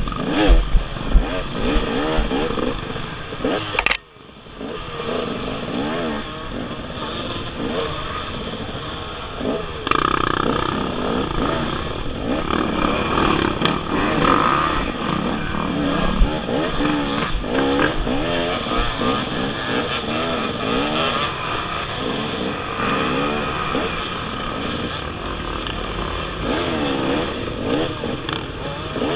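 Dirt bike engines revving up and down at low speed, the camera rider's own bike loudest, with other bikes close by. The sound drops out sharply for a moment about four seconds in.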